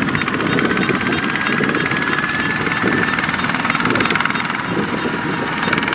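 Two-wheel walking tractor's single-cylinder diesel engine running under load, a steady rapid firing pulse as it drives its trailer through deep mud. A faint steady high whine sits over it.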